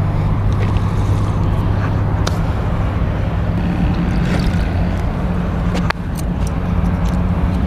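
A steady low engine hum, its tone shifting a little about halfway through, with scattered light clicks.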